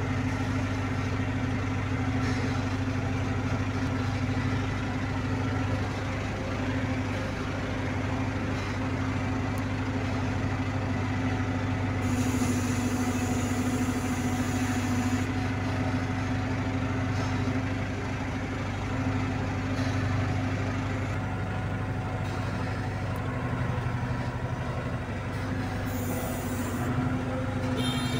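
Diesel engine of a Hydra pick-and-carry crane running steadily, heard from the operator's cab.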